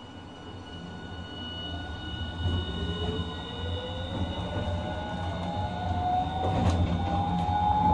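Toyo IGBT VVVF inverter and traction motors of a Hiroshima Electric Railway 1000-series low-floor tram accelerating: a whine that starts about two and a half seconds in and rises steadily in pitch, over a low rumble that grows louder as the tram gains speed.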